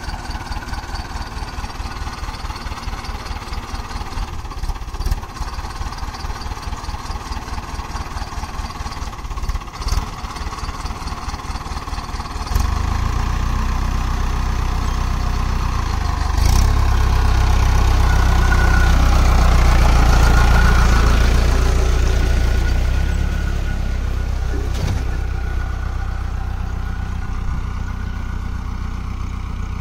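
Mahindra tractor's diesel engine chugging evenly at low revs, then revving up about twelve seconds in as the tractor works through deep mud, loudest around the middle before it eases back down.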